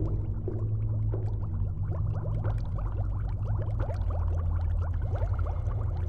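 Liquid bubbling in laboratory glassware, a quick run of small rising bubble pops, over a steady low hum.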